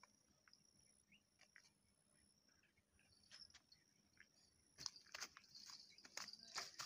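Quiet reed-bank background with a steady high insect trill and scattered small clicks. From about five seconds in, a louder run of crackling rustles comes from the dry grass and reeds.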